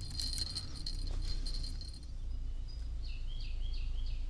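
A small bite-alarm bell on a fishing rod jingling rapidly for about two seconds, then stopping, the sign of a fish tugging at the line or the line being worked. Near the end a bird chirps four times in quick succession.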